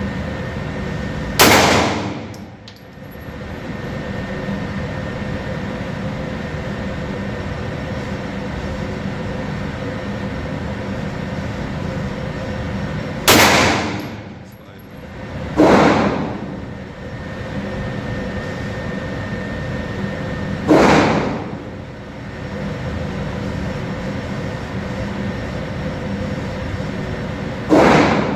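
Springfield XD 9mm pistol fired five times at a slow, uneven pace, single shots many seconds apart, two of them about two seconds apart. Each shot is a sharp crack with a short ring after it, over a steady hum.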